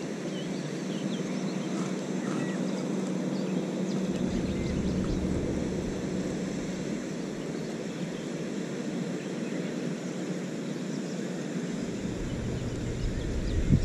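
Steady outdoor noise with wind rumbling on the microphone in gusts, about four seconds in and again near the end, and a few faint bird chirps.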